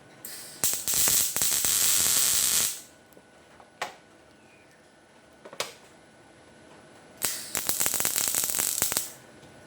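Wire-feed (MIG-type) welder laying tack welds: two bursts of crackling, sizzling arc, each about two seconds long, with a couple of sharp clicks between them.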